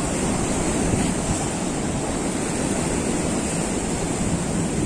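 Sea surf breaking and washing over shoreline rocks, a steady rushing noise with wind rumbling on the microphone.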